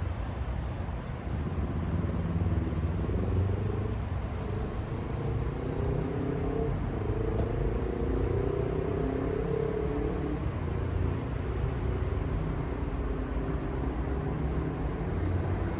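City traffic rumble, with a motor vehicle's engine passing in the middle seconds, over a steady hiss of rain.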